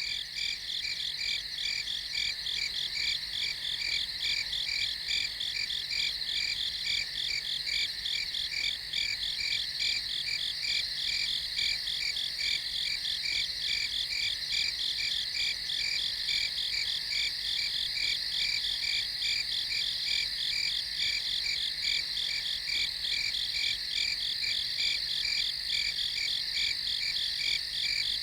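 Night chorus of crickets chirping in steady, evenly pulsed trills, several voices overlapping without a break.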